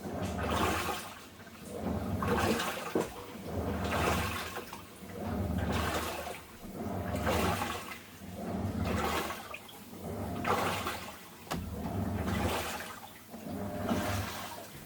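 Washing machine running a wash cycle with water in the tub: it agitates back and forth in an even rhythm of about one stroke every one and a half seconds, each stroke sloshing the water over a low motor hum.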